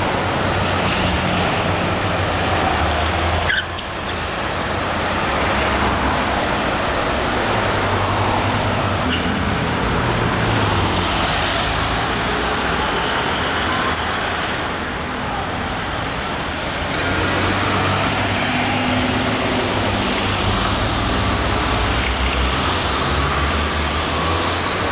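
City street traffic: buses and cars passing, a steady mix of engine rumble and road noise, broken by a short dip about 3.5 s in.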